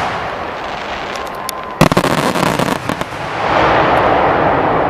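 Aerial fireworks going off: a rapid cluster of sharp bangs about two seconds in, then a few more, over a continuous noisy wash that swells again in the last second and a half.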